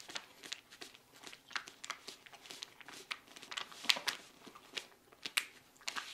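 Crinkly plastic snack pouch being handled, giving irregular crackles and crinkles.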